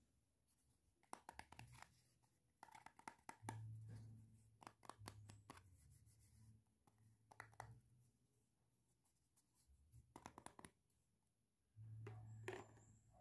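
Hands handling small plastic doll toys, setting a little plastic toy soap into a plastic toy bathtub: faint clicks and taps in several short clusters, some with a low dull knock beneath.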